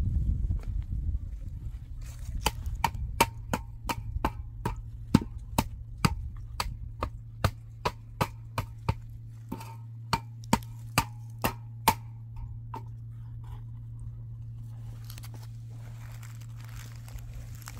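Sharp metallic taps with a short ring, two to three a second for about ten seconds: a hand tool knocking against a metal pan while she works mortar. They stop about two-thirds of the way in, leaving a steady low hum and faint scraping.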